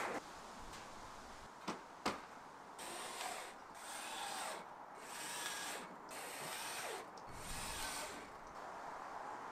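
Metal roof trim being handled at the eave: two sharp clicks, then a series of separate rubbing, scraping strokes as the strip is slid and pressed into place.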